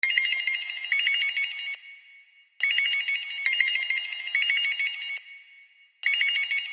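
Intro of a rap beat: a high, trilling melody plays on its own in phrases about two seconds long, separated by short pauses, with no drums or bass.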